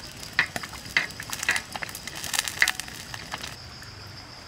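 Cabbage leaves crunching and snapping as they are pulled apart and handled: a run of sharp, irregular crackles lasting about three seconds.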